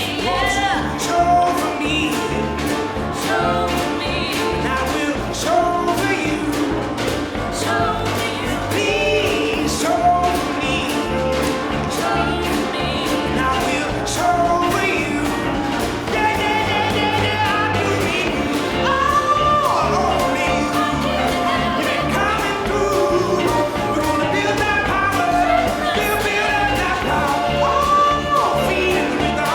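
Pop-rock song with a singing voice over a steady bass and drum beat, with many short sharp clicks running through it.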